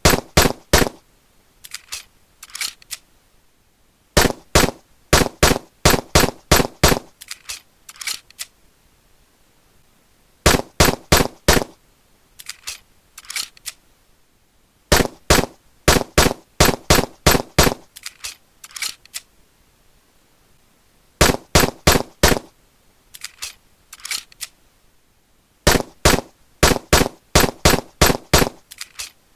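German 9mm pistol shots fired in rapid strings, about four to five a second. Each loud volley is followed by a quieter, shorter one, and the pattern repeats roughly every five seconds.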